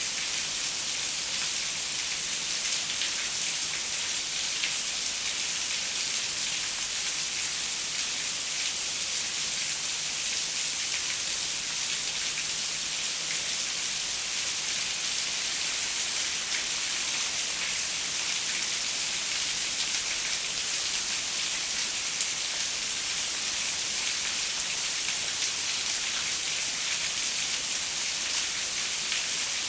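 Steady rain falling on a window, a constant hiss of many small drop ticks that neither builds nor eases, with no thunder.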